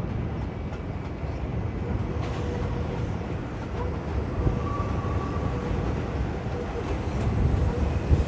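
Meitetsu electric commuter train running along the track: a steady rumble of wheels on rails with a faint steady whine and a few sharp clacks near the end.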